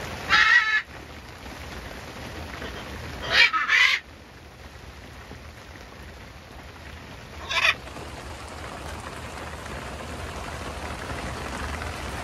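Green-winged macaw squawking loudly three times, the middle call longer and broken in two, over steady rain.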